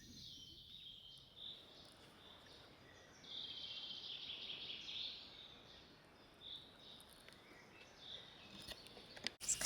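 Faint forest birdsong: high chirps and calls, with a longer buzzy trill about three seconds in, over quiet outdoor background hiss.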